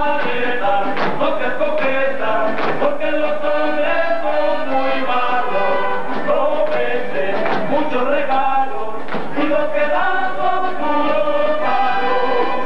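Mexican folk song: a group of voices singing over instrumental accompaniment.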